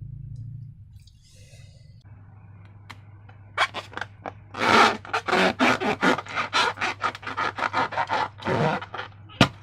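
Slime being worked by hand: a fast, irregular run of scraping, squishing strokes starts about three and a half seconds in, over a faint low hum.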